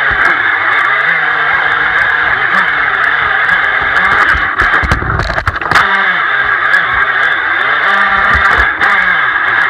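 Onboard sound of an RC jet boat: its motor and jet drive whine up and down in pitch with the throttle over a steady rush of water, with scattered sharp knocks as the hull touches rocks in the shallows. About five seconds in the whine briefly drops away under a low rumble, then comes back.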